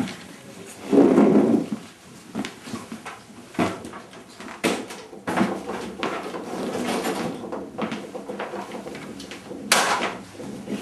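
Scattered knocks and clatter with rustling as people move about a small room. There is a louder noisy patch about a second in and a sharp knock near the end.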